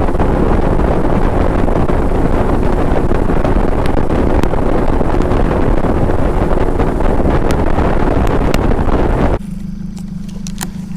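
Fishing boat running at speed under its outboard motor, with wind rushing over the microphone: a loud, steady noise with no clear pitch. About nine seconds in it cuts off abruptly to a much quieter steady low hum.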